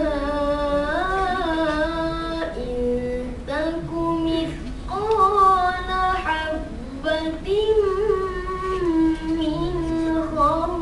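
A boy reciting the Quran in the melodic tarannum style into a microphone: long held notes with wavering, ornamented turns, in several phrases.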